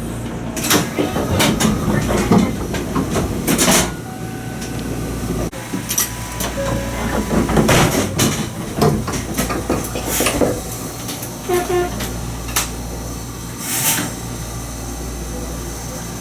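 Toyama Chiho Railway 20020-series electric train, the former Seibu New Red Arrow, running: a steady low rumble with irregular clicks and knocks, and several short bursts of hiss.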